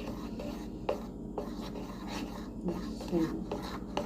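A spoon scraping and clicking against a small bowl as flour is stirred into cake batter.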